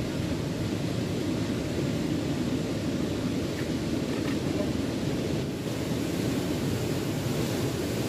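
Heavy surf breaking on a rocky shore, a steady low wash of noise, mixed with wind on the microphone.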